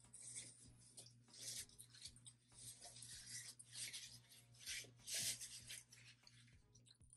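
Hands being rubbed together and wiped clean, a run of faint, soft swishing rubs.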